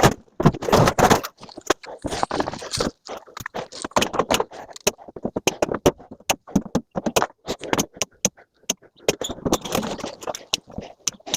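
Pieces of scrap metal clinking and scraping as they are handled: a quick, irregular run of sharp clicks and knocks, with short scrapes between them.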